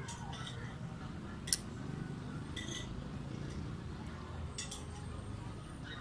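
A few light, separate clicks and clinks of small hard objects, the sharpest about a second and a half in, over a low steady background rumble.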